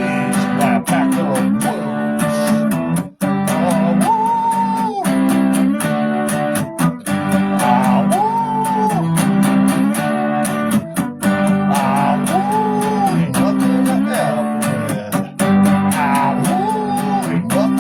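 Song's instrumental break: strummed acoustic guitar with a short melody phrase that rises, holds and falls, coming back about every four seconds.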